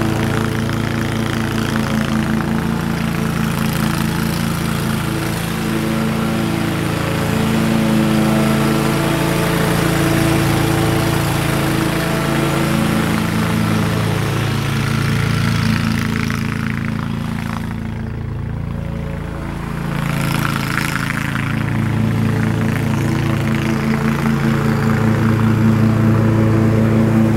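Commercial riding lawn mower engine running steadily under load, its pitch and level shifting a little and dropping briefly about two-thirds of the way through.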